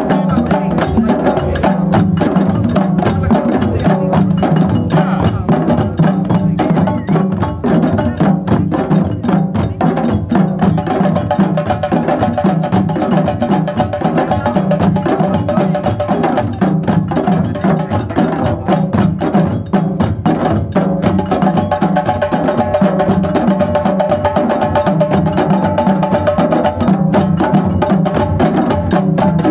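Drum circle: a group of djembe hand drums played together in a steady, fast rhythm.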